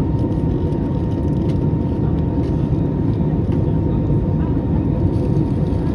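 Steady cabin noise of an Airbus A320neo in cruise: a deep, even drone of engines and rushing air, with a faint steady whine above it.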